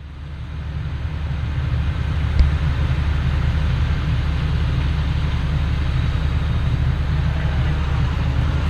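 Potato-harvesting machinery running steadily with a heavy low drone, and one sharp knock about two and a half seconds in.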